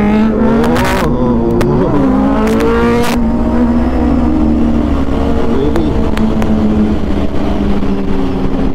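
Motorcycle engines running while riding, with rushing wind noise. In the first three seconds engine notes rise and fall as throttles are opened and closed; after that a single steady engine drone holds.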